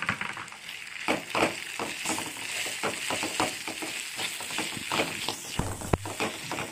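Metal spatula stirring wet flattened rice (poha) through a tempering in a metal kadai: irregular scrapes and clinks of the spatula against the pan over a faint sizzle.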